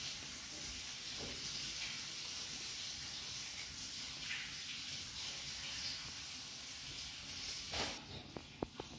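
A cat eating dry kibble from a plate, with faint crunching over a steady hiss. Near the end there is one louder knock, the hiss drops away, and a few sharp clicks follow.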